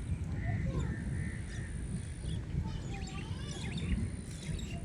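Birds chirping and calling in short, repeated notes over a steady low rumble.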